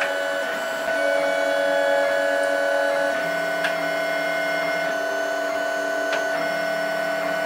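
LulzBot TAZ 3D printer's stepper motors running as it prints the flexible NinjaFlex layer. It sounds as a chord of steady tones that switch pitch every second or two as the print head changes moves, with a couple of light clicks.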